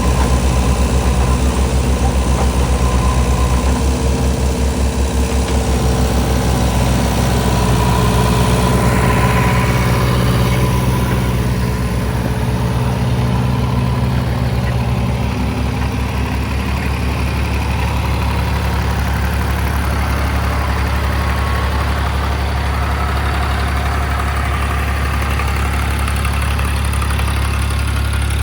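JCB excavator's diesel engine running steadily with a low hum; its pitch shifts slightly about a third of the way in.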